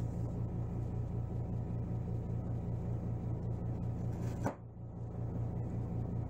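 A steady low hum with a regular pulse, under faint taps of a knife slicing lemongrass stalks on a wooden cutting board. One brief louder click comes about four and a half seconds in.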